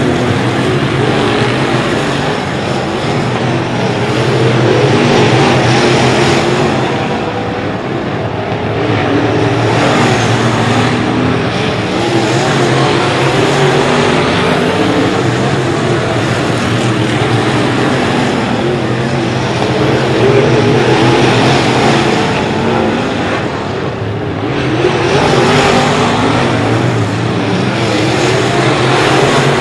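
Dirt-track race cars running flat out around the oval, a dense engine noise that swells louder and fades as the pack passes every few seconds.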